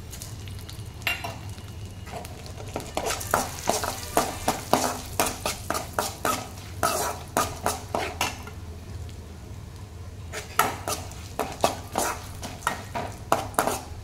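A steel ladle scrapes and clinks against an aluminium kadai, stirring cashews, black peppercorns and cumin seeds frying in hot ghee, with the ghee sizzling underneath. The stirring comes in two bouts: from about a second in until about eight seconds, then again from about ten to thirteen seconds.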